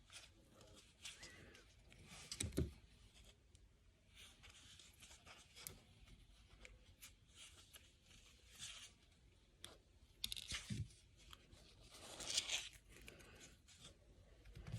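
Faint, intermittent tearing and crinkling of plastic toy packaging as an accessory is worked free, with louder bursts about two and a half seconds in and again from about ten to thirteen seconds in.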